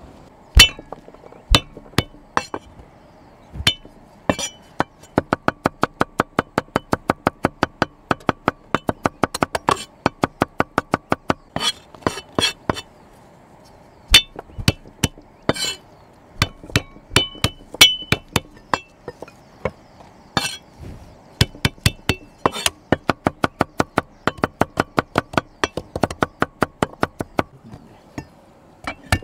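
Garlic being crushed and chopped: fast runs of sharp, clinking strikes, about four to five a second, broken by short pauses.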